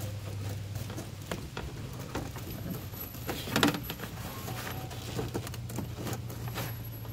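Small plastic clicks and rustles as a replacement 9006 halogen headlight bulb and its socket are worked back into the headlight housing. The loudest cluster of clicks comes a little past halfway. A steady low hum runs underneath.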